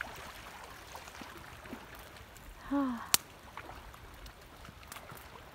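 Faint, steady water sounds, with a brief falling vocal sound about three seconds in and a sharp click right after it.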